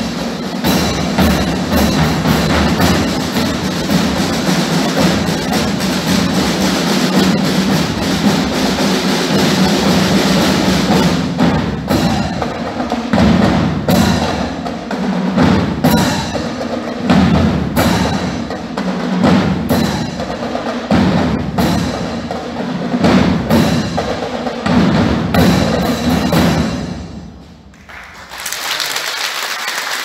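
Snare drums and bass drums played together in a dense, driving rhythm over a steady musical backing. The drumming drops away briefly near the end, then resumes.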